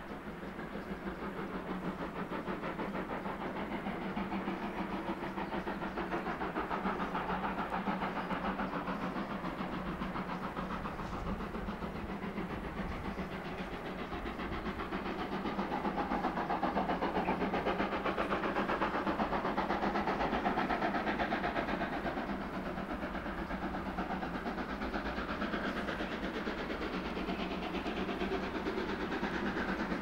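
Steam locomotive hauling a train, heard from afar: its exhaust beats come in a rapid, regular rhythm with a hiss of steam, growing louder as it approaches.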